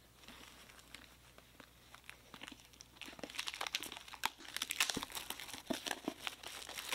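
Plastic shrink wrap on a hardcover book being torn open and peeled off by hand, crinkling and crackling. The first few seconds hold only faint scattered crackles, and the crinkling grows dense and louder about three seconds in.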